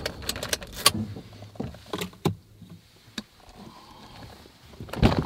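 A car key clicking as it is turned in the ignition and pulled out, switching the car off, with keys jangling and a run of sharp clicks in the first second. Scattered small clicks follow, then a louder clatter near the end.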